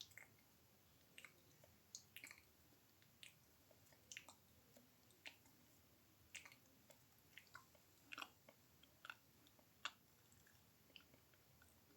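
Mouth sounds made close to the microphone: soft, wet tongue-and-lip clicks and smacks, irregular, roughly two a second.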